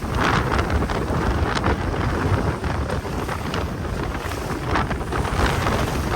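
Strong wind buffeting the microphone, a steady loud rumble with irregular gusts.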